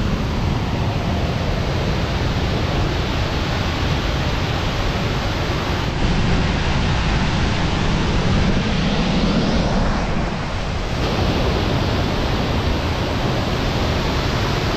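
Mountain waterfall and rocky cascade rushing steadily, a loud continuous roar of falling water; its tone shifts slightly about six and eleven seconds in.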